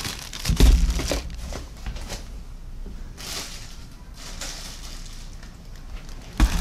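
Clear plastic bag of plastic model kit parts crinkling as it is handled, with a heavier thump about half a second in. Quieter rustling follows, and a sharp knock comes near the end.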